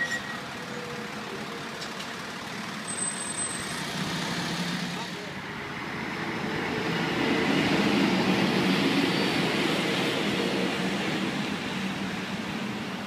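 City street traffic noise. A passing vehicle's engine hum and road noise build to a peak about eight seconds in and then fade. A short click comes right at the start.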